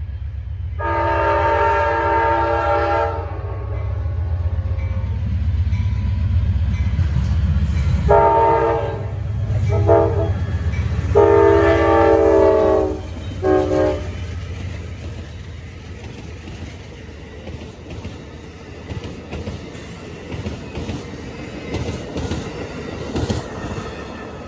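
Amtrak GE Genesis P42DC diesel locomotive's air horn blowing at a grade crossing over the rumble of the engine. There is one long blast about a second in, then four more blasts between about eight and fourteen seconds, the longest near twelve seconds. After that the passenger cars roll by with a rhythmic clickety-clack of wheels over the rail joints, slowly fading.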